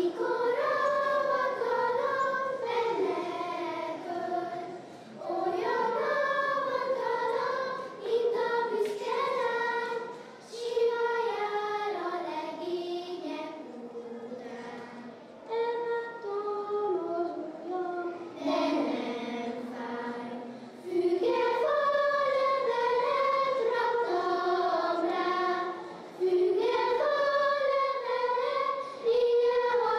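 A group of children singing a Hungarian folk song together, in phrases with short breaks for breath.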